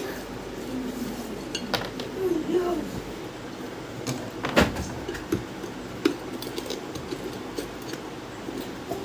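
Light clinks and clicks of hard, metallic-sounding objects being handled, with one louder knock about halfway through, over a steady low hum.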